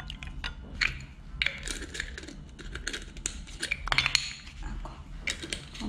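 Wooden spoon stirring sauce in a small glass bowl, giving scattered light knocks and clinks against the glass.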